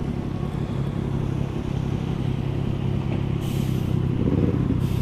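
Motorcycle engine running steadily at road speed, picked up by a helmet camera together with wind and road noise on a rain-soaked road, with brief rushes of hiss about three and a half seconds in and again near the end.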